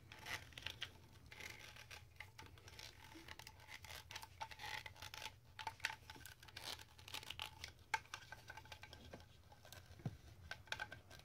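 Faint, irregular plastic clicks, taps and scraping from a Play-Doh Mop Top Hair Shop figure and chair being handled and squeezed as pink dough is pressed out through the head into hair strands.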